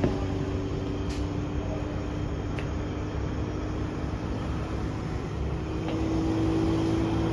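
A steady mechanical hum with a low drone, like a running engine or machinery, growing louder and slightly higher in pitch about six seconds in.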